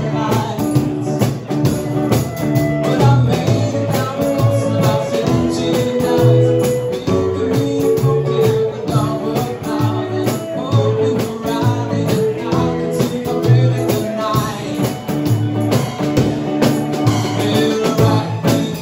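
A small live band playing: a bowed violin over a plucked upright double bass and a strummed archtop electric guitar.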